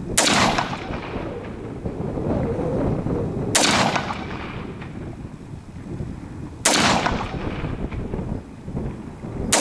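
Ruger AR-556 semi-automatic 5.56 mm rifle fired from a bench rest: three single shots about three seconds apart, with a fourth right at the end, each a sharp crack with a short echo.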